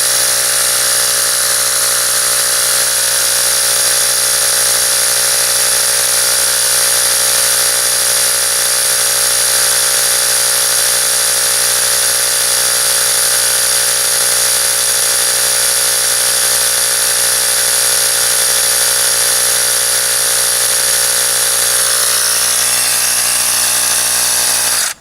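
Ryobi P737 18V cordless tire inflator running steadily with a constant motor-and-compressor drone, pumping air into a car tire that was under 20 psi; it cuts off suddenly at the very end.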